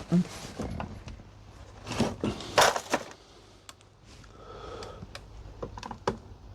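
A series of sharp knocks and clunks of things being moved about in a small room, the loudest about two and a half seconds in, with a few lighter clicks near the end.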